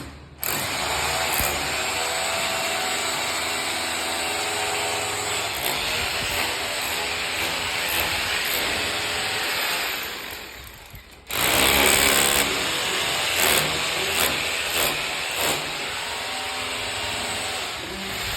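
A power tool running with a steady hum and a loud, noisy working sound. It starts abruptly, winds down about ten seconds in, and starts up again a second later.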